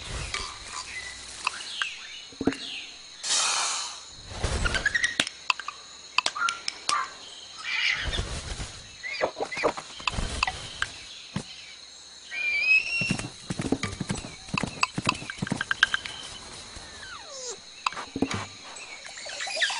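Paper crinkling and crackling in quick clusters of clicks as a sheet is crumpled and shaped, broken by animal cries, among them a gliding call about 13 seconds in and a falling one near the end.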